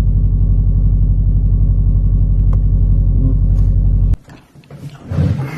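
Steady low drone of a car heard from inside the cabin, cutting off abruptly about four seconds in.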